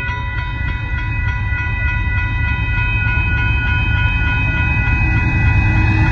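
Grade-crossing signal bell ringing steadily over the low rumble of an approaching diesel-hauled freight train, the rumble growing louder near the end.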